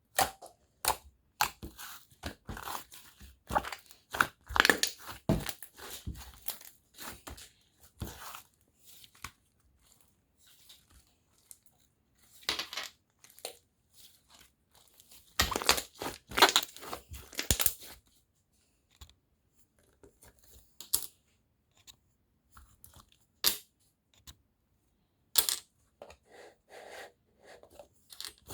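Handmade slime being squished and stretched by hand, making sticky crackling and popping clicks. The clicks come thick and fast for the first several seconds, then thin out into scattered single pops, with another burst of crackling about halfway through.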